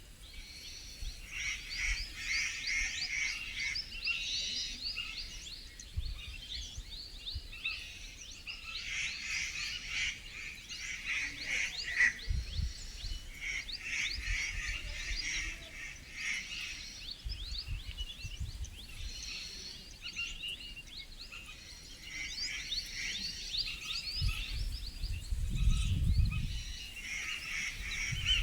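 Forest birds chirping in overlapping bouts, a dense chorus of short, quick, falling chirps, with low rumbles now and then, the loudest one about 25 seconds in.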